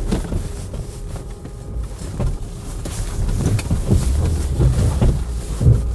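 Lada Niva 1.7's four-cylinder petrol engine running as the car rolls and jolts over rough, frozen off-road ground. The low rumble gets louder about halfway through, with several knocks from the bumps in the second half.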